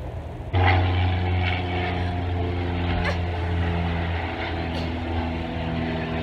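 Airplane flying overhead, its engine drone a steady low hum with several even tones above it, coming in suddenly about half a second in and holding level.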